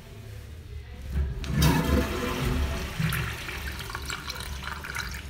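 Wall urinal flushing: water rushes into the ceramic bowl starting about one and a half seconds in, loudest at first and then tapering off.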